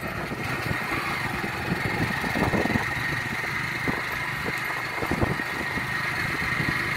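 Motorcycle engine running steadily while riding over a dirt road, with a few short thumps about two and a half, four and five seconds in.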